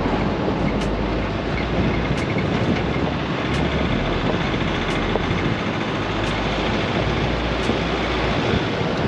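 4x4 off-road vehicle driving on a dirt track: a steady rumble of engine, tyres and wind, with a faint high tick repeating about every one and a half seconds.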